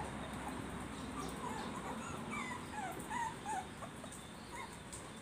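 A young puppy, about two weeks old, giving a run of short, high-pitched squeaking whimpers, one after another from about a second in.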